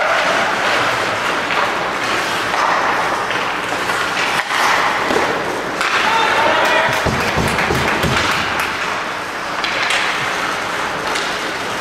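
Ice hockey rink crowd noise: clapping and scattered shouting voices, with a few heavy thuds about seven to eight seconds in.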